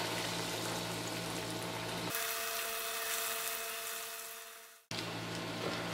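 Hot oil sizzling steadily in a frying pan as breaded bread pizza pockets are laid into it. About two seconds in the sound changes abruptly and fades out to silence, then cuts back in sharply near the end.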